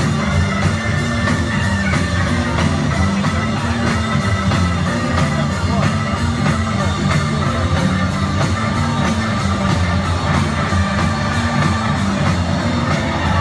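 Rock music with singing and a steady beat, played loud over a stadium's public-address system.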